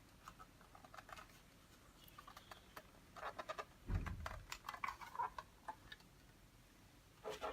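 Faint plastic clicks and rattles of the used waste ink tray being lifted out of the ink drawer of a DM300c/DM300M franking machine, with a dull knock about four seconds in.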